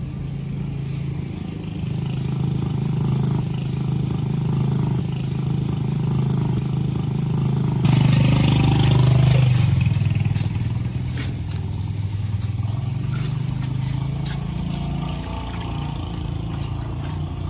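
Steady hum of motor vehicle engines running nearby, with one vehicle passing close about eight seconds in, louder for a couple of seconds, its pitch dropping as it goes by.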